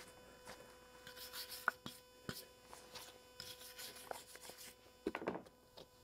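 Brass wire brush lightly scrubbing rust off a cast-iron dumbbell, in two short spells of quick strokes about a second in and near four seconds in, with a few light knocks as the dumbbell is handled. A steady electrical hum runs underneath.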